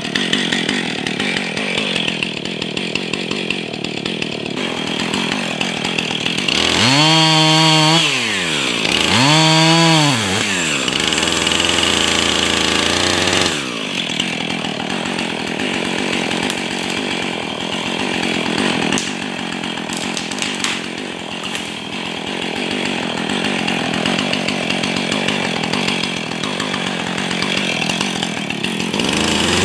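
Husqvarna 445 two-stroke chainsaw cutting small trees, running under load. About seven seconds in it revs up and down twice, drops to idle for a few seconds, then goes back into the cut, and revs up again at the end.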